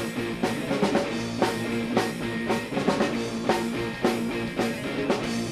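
Rock band playing an instrumental passage: drum kit keeping a steady beat, about two hits a second, under electric guitar and bass.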